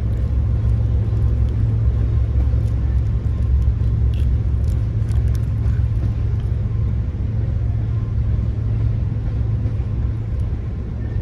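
Steady low rumble of a passing train, with a few faint clicks around the middle.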